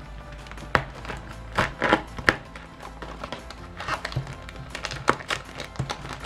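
Small cardboard snack box being handled and pried at, giving several sharp clicks and crinkles, the loudest in the first half, over steady background music.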